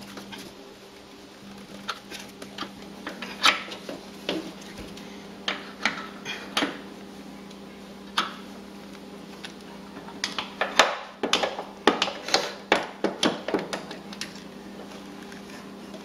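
Metal clinks and clicks of a hand tool against the mower deck's idler arm and pulleys as the new deck belt is fitted and tensioned, scattered at first and coming thick and fast about ten seconds in, over a steady low hum.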